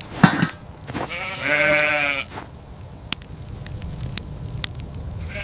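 A sheep bleats once, a drawn-out call lasting about a second, over a steady low rumble. A short, sharp, loud sound comes just before it.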